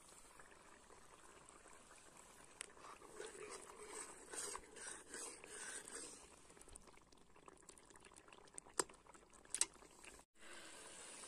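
Hot frying oil bubbling faintly in a large kadhai as a metal ladle is stirred through it. Two short sharp clicks come near the end, a little under a second apart.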